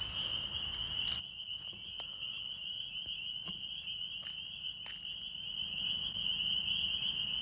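A steady, high-pitched chorus of calling night creatures, with a few faint ticks scattered through it.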